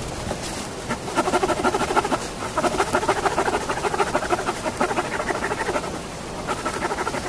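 Folding pruning saw cutting through a wet fallen log with quick back-and-forth rasping strokes, with a short pause near the end before the strokes start again.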